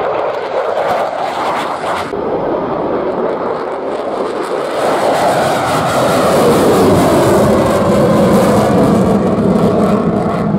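Fighter jet engine noise from low passes: first a Saab Gripen's single jet engine, then, after a cut about two seconds in, an F-15's twin jet engines. The F-15 is louder from about five seconds in, and its pitch falls as it goes past.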